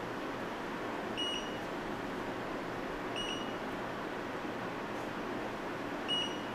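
Three short, high beeps from the ZIPPTORK torque controller's touchscreen as on-screen buttons are pressed, over a steady background hiss.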